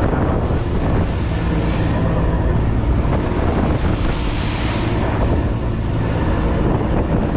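Steel fishing boat's engine running steadily under way, under the rush of waves and spray breaking along the hull and wind on the microphone. The rush of water swells twice as the bow meets big waves.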